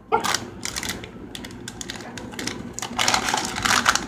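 A My Little Pony blind-bag packet crinkling and crackling as it is opened by hand, with irregular sharp clicks and louder rustling near the start and again about three seconds in.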